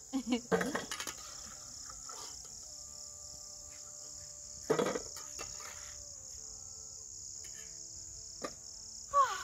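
Steady high-pitched insect chorus, with a few short knocks of a metal spatula against aluminium pots as fried mandazi are lifted out of the oil. The loudest knock comes about halfway through, and another comes near the end.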